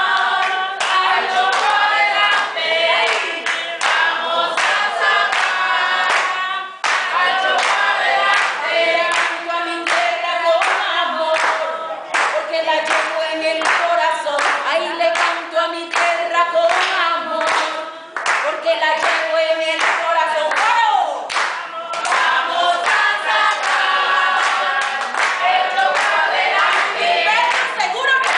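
A woman singing a song, with other voices singing along, unaccompanied, over steady hand clapping from the people around her.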